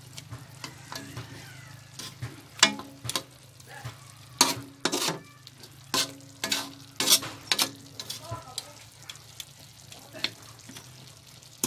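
Kitchen tongs knocking and scraping against a metal wok as braised pork hocks are stirred in a thick simmering sauce. The sauce sizzles under irregular sharp clinks, which are loudest through the middle, over a steady low hum.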